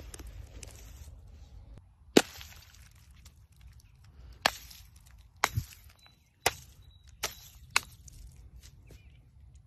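A large balloon packed with water beads bursting with one loud, sharp pop about two seconds in, followed by six quieter sharp snaps over the next few seconds.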